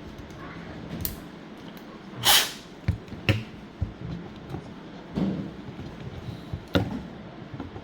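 Irregular small clicks and knocks from hands handling objects, with a short scraping rustle about two seconds in and another soft rustle a little after five seconds, over a steady low hum.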